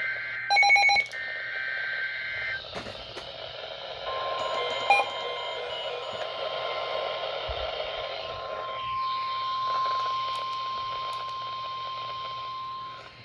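Weather radio receiver over static: an EAS SAME header's two-tone data burst ends about two and a half seconds in, with a short pulsing beep near the start. About four seconds in, the steady single-pitch NOAA Weather Radio warning alarm tone (1050 Hz) begins and holds for about nine seconds, signalling an incoming warning broadcast.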